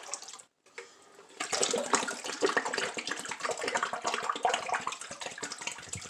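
Water sloshing and splashing in a filled sink as a plastic humidifier tank is swished around and lifted out of its bleach-water soak. The sound is quiet at first and gets busier about a second and a half in.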